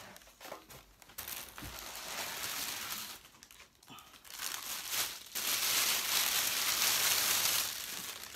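Thin plastic wrapping bag crinkling as a speaker is lifted out of its box and the bag is pulled off it, in two stretches: a softer one about a second in and a louder, longer one from about five seconds in.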